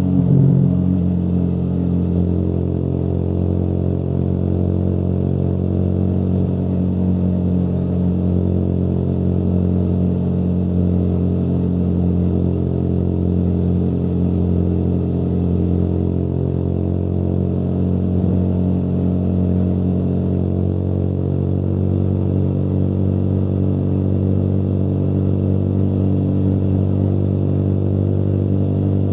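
Motorcycle engine running at a steady cruising speed, its note holding even, with a brief surge about half a second in.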